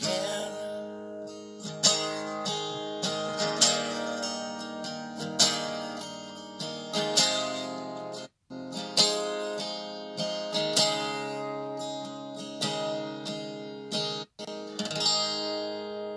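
Acoustic guitar played solo and instrumental, with strummed and picked chords that have sharp accents, the last chord left ringing and fading near the end. The sound cuts out completely for a split second twice.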